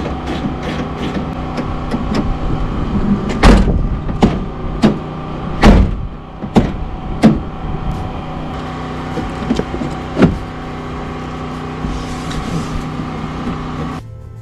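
Hand work on a pickup's rear door latch hardware: a series of sharp metallic clicks and knocks, about six between roughly 3.5 and 7.5 seconds in and one more near 10 seconds, over a steady mechanical hum that drops away near the end.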